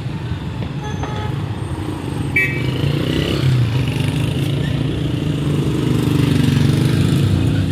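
Street traffic: a motor vehicle engine running close by, its hum rising in pitch and getting louder in the second half, with a short high squeak about two and a half seconds in.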